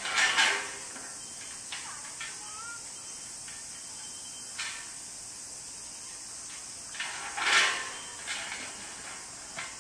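An African elephant yanking and swinging a rubber tyre hung on a chain against a metal gate: a loud scraping rattle at the start and again about seven and a half seconds in, with a few light knocks between.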